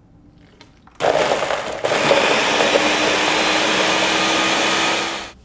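Countertop blender running at full power, churning frozen raspberries, frozen banana, cereal, yogurt and milk into a smoothie. It starts about a second in, grows fuller a second later, runs steadily with a motor hum under the churning, and stops near the end.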